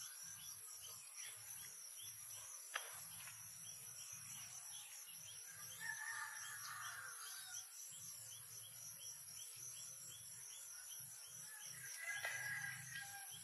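Steady, pulsing chorus of insects such as crickets, with two short calls about six seconds apart and a single sharp click a few seconds in.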